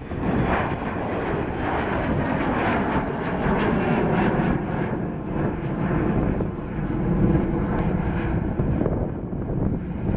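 A Boeing 737-300's two CFM56-3B1 turbofan engines at takeoff thrust: a steady jet roar as the airliner climbs away. Its higher tones thin out near the end.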